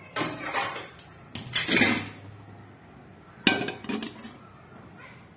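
Large metal bowl clanking and scraping against the metal gas-stove top and pan support as it is set down and shifted into place, in several bursts over the first four seconds.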